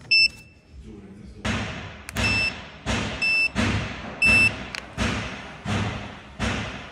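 Electronic beeps from an Enduro caravan mover's remote control as its buttons are pressed: one short beep, then three more about a second apart. Background music with a steady thudding beat runs under them, dropping out for about a second near the start.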